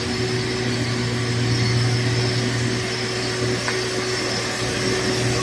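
A heavy vehicle engine running with a steady, unchanging low drone over road noise.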